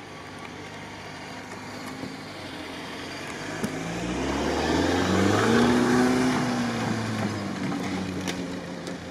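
Off-road 4x4's engine revving up as it climbs a sandy slope, rising in pitch and loudness to a peak about two-thirds of the way through, then easing off.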